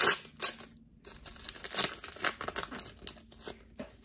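Foil wrapper of a trading-card pack being torn open and crinkled by hand: irregular crackling and rustling, sharpest at the start and again about two seconds in, then fading to light rustling.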